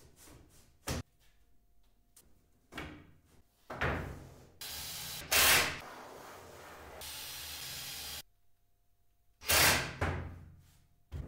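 Wooden drawer parts knocked and set down on a workbench, a few knocks and clatters, with a few seconds of scraping in the middle as the drawer is put together and handled.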